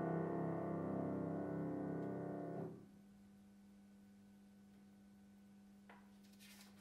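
Grand piano holding a final chord that fades and is cut off by the dampers about two and a half seconds in. Then a steady low hum, and near the end a faint rustle of a sheet-music page being turned.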